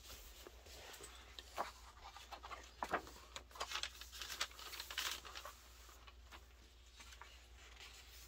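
Pages of a glossy photobook being turned by hand: soft rustles and light clicks of paper and a clear plastic overlay sheet. The handling is busiest from about one and a half to five seconds in, then dies down to faint rustling.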